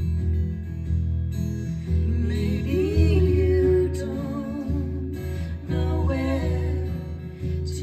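Live acoustic guitar accompanying women singing, with the sung line wavering in vibrato about two to four seconds in and again about six seconds in.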